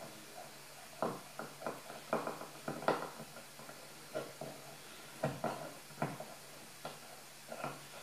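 Scattered faint clicks and knocks as the controls on the panel of an Audionic Mehfil MH-30 portable speaker are set by hand, over a faint steady hum.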